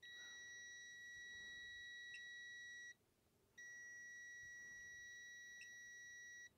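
Aneng M113 multimeter's continuity beeper sounding a steady high tone, as two long beeps of about three seconds each with a short break between. The fully automatic meter reads the near-zero-volt calibrator output on its leads as a low resistance and beeps for continuity.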